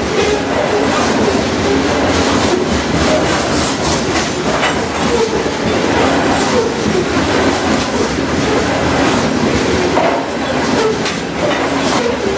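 Loaded rock-train hopper cars rolling past close by: a steady rumble of steel wheels on rail with irregular sharp clacks as the wheels strike the diamond crossing, over a faint steady hum.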